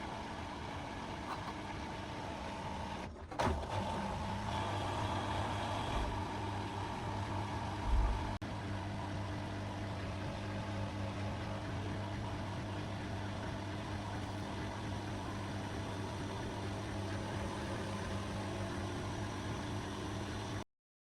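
Beko washing machine running steadily under test after its inverter power board repair, with a steady motor hum and a couple of brief knocks. The sound cuts off abruptly near the end.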